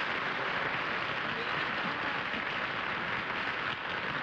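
Studio audience applauding steadily after the mystery guest is correctly identified.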